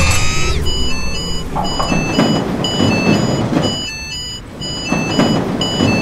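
Japanese-style railroad crossing warning bell ringing: short electronic dings alternating between two pitches about twice a second, with low rumbling swells underneath. A falling, whistle-like cartoon sound effect ends just as it begins.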